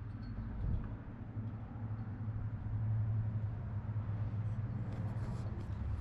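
A steady low engine rumble from a motor vehicle, growing louder about halfway through, with a few faint ticks near the end.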